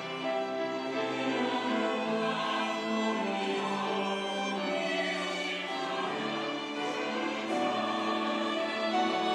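Church choir singing an anthem in long held notes, with instrumental accompaniment.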